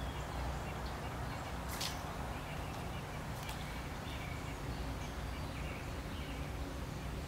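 Outdoor ambience: a steady low rumble with faint bird chirps, and two sharp clicks about a second and a half apart, nearly two seconds in.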